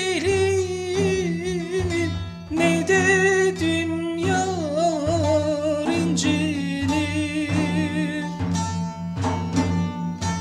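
A man singing a long, wavering, ornamented line without clear words over a bağlama's plucked accompaniment, in the style of a Turkish türkü. From about eight seconds in the voice falls away and the bağlama plays on alone in quick plucked notes.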